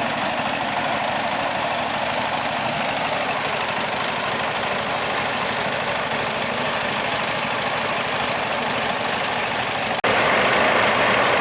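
An engine running steadily. It jumps abruptly louder about ten seconds in.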